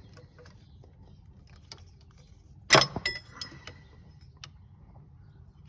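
A metal spanner clinks once sharply against metal about three seconds in, with a brief ring, followed by a few lighter clicks and taps.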